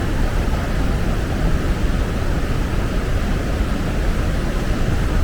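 Steady low rumble and hiss of a vehicle on the move, with wind buffeting the microphone.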